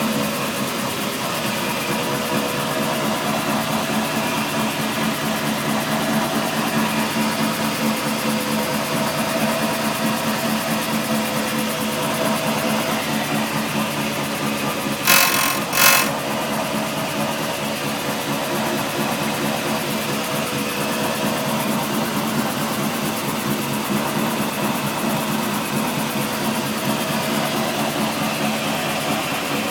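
A car's rear driveline droning steadily, a quite loud hum with a few fixed tones. The owner suspects a pinion or carrier bearing in the newly reconditioned differential, since the tail shaft has been replaced and the drone stays whichever wheel is left to roll. Two sharp clicks come about halfway through.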